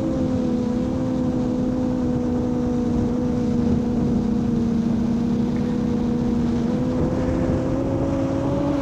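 Molecula FPV M7 quadcopter's motors and two-blade propellers in flight: a steady buzzing hum that rises a little in pitch near the end.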